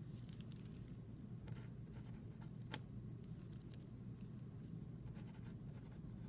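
Writing by hand on a graph: short scratchy pen strokes, bunched in the first second and sparser after, with one sharp click a little under three seconds in, over a faint steady room hum.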